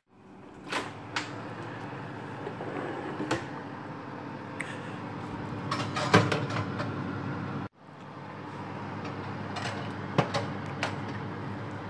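An oven door is opened and two metal donut pans are slid onto the oven's wire rack: a series of sharp knocks, clicks and scrapes over a steady background hum, with the sound dropping out briefly once midway.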